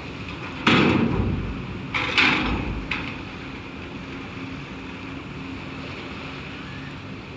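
A van's front and then rear wheels clunk over the steel loading ramp of a chain ferry: two loud metallic knocks a little over a second apart, each ringing briefly, the second doubled, followed by a small click.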